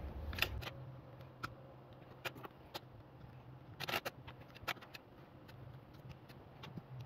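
Fingers and fingernails picking at the sticker and plastic filler caps on top of a small Yuasa 6N4-2A-5 battery, making scattered faint clicks and scratches, the loudest about half a second in and about four seconds in.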